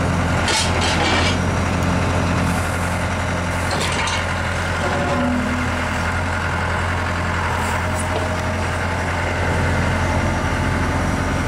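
Daewoo S55 V mini excavator's diesel engine idling steadily, with brief hissing noises near the start and about four seconds in.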